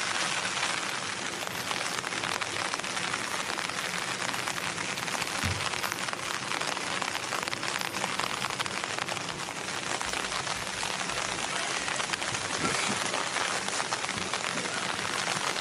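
Steady rain falling, a dense even patter of drops.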